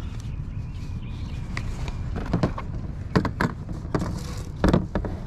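Small objects being handled on a folding table, with several sharp knocks and clacks as items are picked up and set down, a pair about two seconds in, another pair about a second later, and the loudest near the end, over a steady low rumble.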